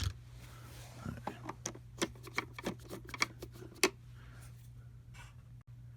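Irregular sharp clicks and clinks of small hand tools being handled, about a dozen in a cluster over two to three seconds, over a steady low hum.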